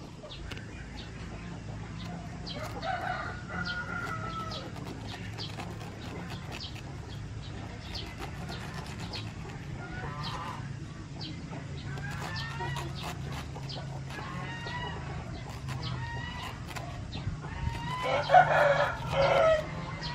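Chickens calling in short pitched calls, with a rooster crowing, the loudest call near the end.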